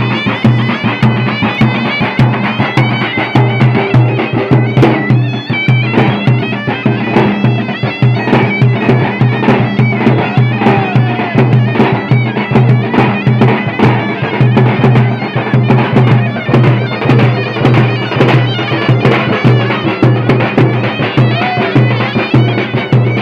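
Southern Tunisian folk music played live: a reedy wind pipe plays a nasal, wavering melody over large two-headed tabl drums beaten in a steady, fast rhythm.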